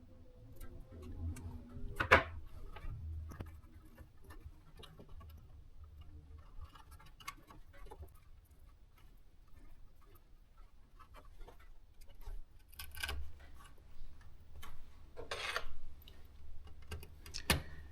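Scattered small clicks, taps and rubbing from hands handling parts and wiring, with a sharper click about two seconds in, a brief scrape near fifteen seconds and another sharp click near the end.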